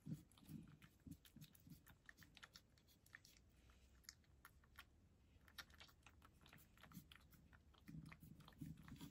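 A cat eating from a shallow dish: faint, quick clicks of chewing, with a few soft low thumps near the start and again near the end.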